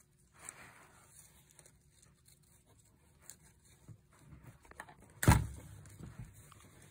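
Nylon chinstrap webbing being worked and pulled through the slots of a plastic buckle: faint rustling and scraping, with one louder, sharp rasp about five seconds in.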